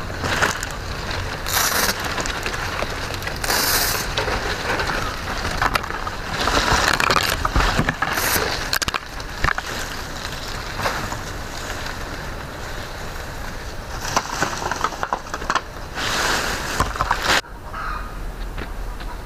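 Green coconut palm fronds rustling and scraping over dirt ground as they are handled and laid out, in repeated bursts of a second or two.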